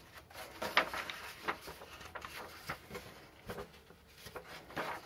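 Pages of a coated-paper instruction booklet being turned by hand: a series of soft rustles and crinkles of paper.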